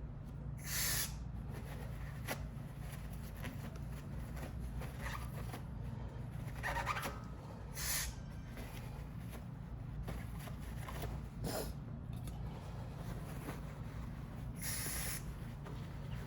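Brake caliper being cleaned: a few short hisses of aerosol brake cleaner and rag rubbing, over a steady low hum.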